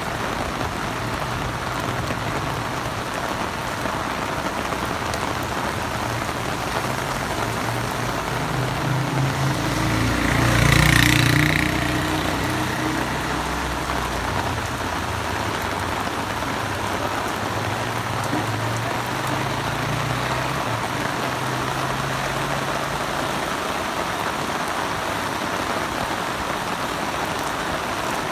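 Heavy rain falling steadily. About ten seconds in, a motor vehicle passes, swelling louder and fading again.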